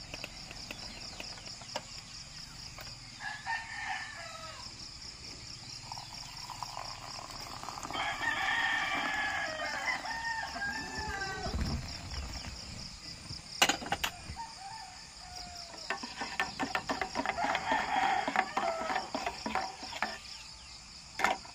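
A rooster crowing in three bouts, over a steady high chirring of crickets.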